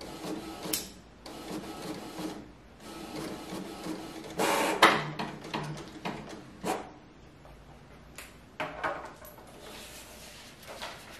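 Canon Pixma iX6820 inkjet printer printing a photo: the print head whirs back and forth in repeated passes, with a sharp mechanical clack about five seconds in, as the finished print is fed out onto the tray.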